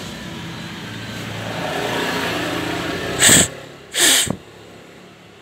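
Two short, loud hissing blasts of air about a second apart, over a vehicle engine running and revving a little in the background.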